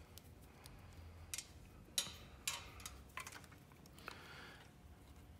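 A few faint, sharp clicks and small taps from handling motorcycle battery terminal bolts and wiring connectors, the loudest about two seconds in, with a brief scrape just after four seconds.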